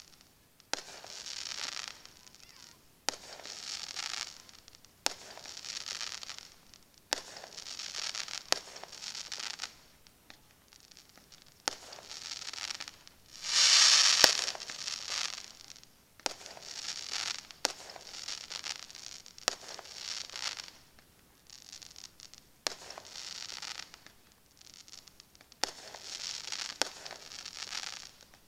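Aerial firework shells bursting one after another, about every two seconds, each a sharp bang followed by a second or so of crackling stars. The loudest burst comes about halfway through.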